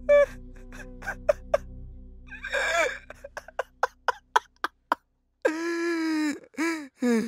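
A man sobbing in anguish: a run of short, sharp catching breaths and gasps, then a long wavering cry about two-thirds of the way in and broken cries near the end. A low background music drone fades out in the first half.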